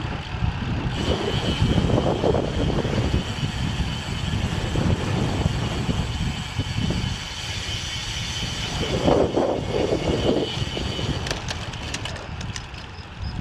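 Strong headwind buffeting the microphone of a cyclist's wearable camera while riding a road bike: a continuous, uneven low rumble that swells in gusts.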